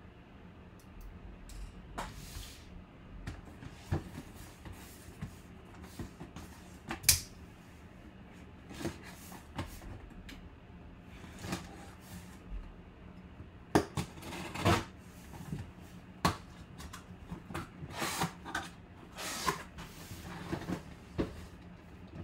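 Cardboard box being cut open and unpacked by hand: scattered knocks, scrapes and rustles of cardboard, the sharpest knocks about seven and fourteen seconds in.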